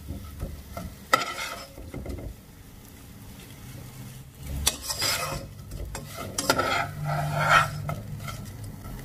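Spoon stirring spice-coated fried potatoes around a non-stick pan with oil sizzling, scraping against the pan. There is a sharp knock about a second in, then stretches of scraping past halfway.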